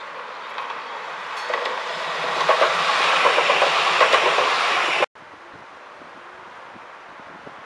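Modern low-floor articulated tram passing close by. Its running noise builds for about five seconds, with a quick run of wheel clatter over the track at its loudest, then cuts off abruptly. A quieter, steady street background follows.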